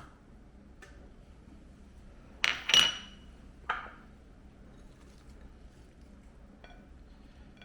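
Dishes and cutlery clinking: a few sharp, ringing clinks about two and a half seconds in, a duller knock a second later, and faint light taps.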